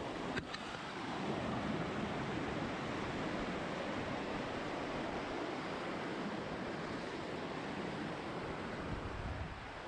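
Steady rushing of a fast mountain stream tumbling over rocks and small falls, an even unbroken rush. A brief click sounds just after the start.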